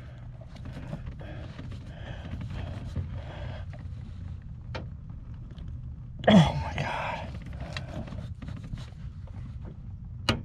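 A man's short strained grunt about six seconds in, falling in pitch, as he heaves on a small hand ratchet against a door-hinge bolt that won't break loose. Scattered faint clicks and knocks of the ratchet sit over a low steady rumble.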